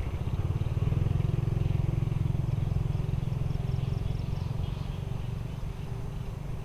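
A small motorcycle engine passing, louder about a second in and slowly fading away.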